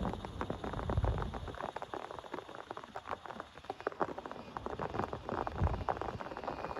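Raindrops pattering irregularly on a surface in many separate sharp ticks, with two dull low thumps, one about a second in and one near the end.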